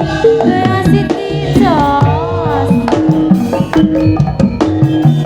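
Live jaranan gamelan music: hand-drum (kendang) strokes over steady struck notes, with a lead melody that slides up and down in pitch.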